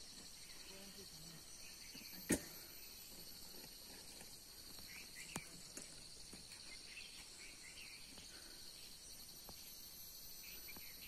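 A steady, high-pitched chorus of insects buzzing and trilling, with a few faint chirps over it. A sharp click about two seconds in, and a smaller one about five seconds in.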